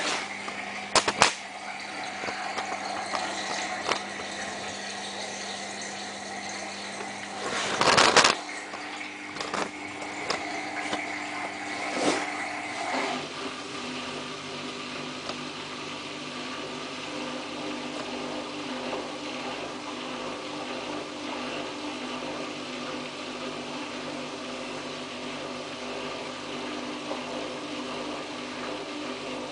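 Samsung WF8804RPA front-loading washing machine starting a spin in its service test mode: the motor and drain pump run steadily, with a few sharp clicks about a second in and a loud short clunk about eight seconds in. About thirteen seconds in the running note changes and settles into an even, rhythmic pulsing as the drum turns.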